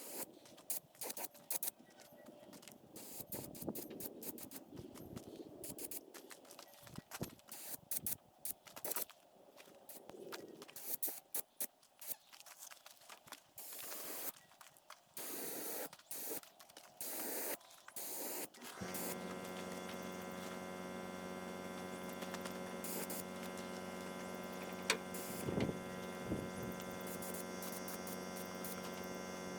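Paint spray gun hissing in short, irregular passes. About two-thirds of the way through, an electric motor, most likely the air compressor feeding the gun, starts suddenly and runs with a steady hum.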